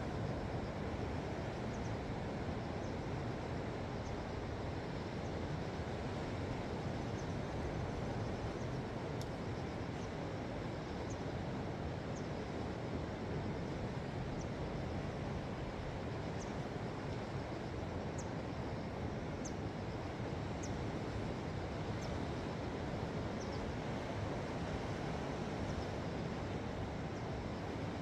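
Sea surf washing against a rocky shore, a steady rushing wash of waves. Faint, short, high chirps come every second or two.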